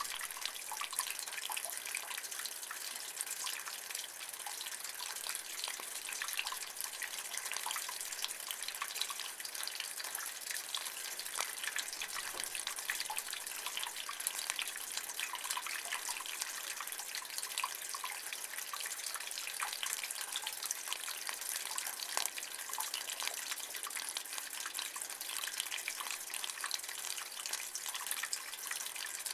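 Water running and dripping in a rain gutter: a steady splashing trickle dense with small drips, mostly high-pitched.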